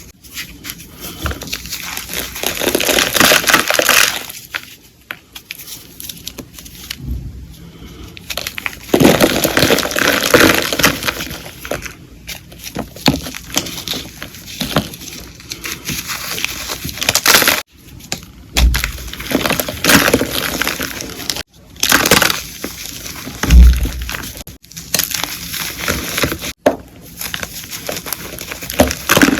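Brittle blocks of coloured gym chalk crunching and crumbling as they are crushed, in long bursts of gritty crackling broken by a few abrupt cuts. Two short dull thumps come about two thirds of the way through.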